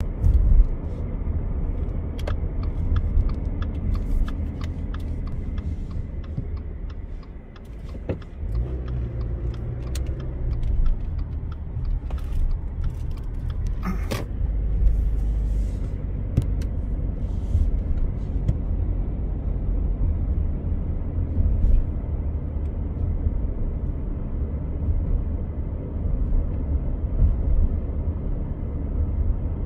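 Car driving, heard from inside the cabin: a steady low road-and-engine rumble, with scattered light clicks during the first half and a brief drop in loudness about eight seconds in.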